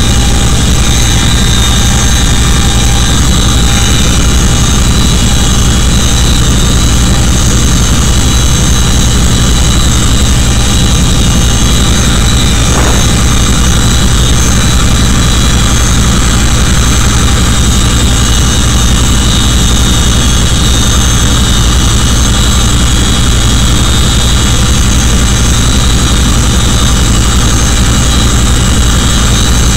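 Boeing CH-47 Chinook tandem-rotor helicopter heard from inside the cabin in flight: its twin turboshaft engines and rotors make a steady, loud noise, a constant low drone with a high whine over it.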